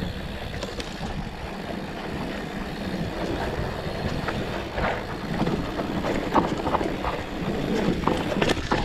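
Mountain bike rolling down a dry dirt trail: steady wind rush on the microphone and tyre rumble over the dirt, with scattered clicks and rattles from the bike over bumps in the second half.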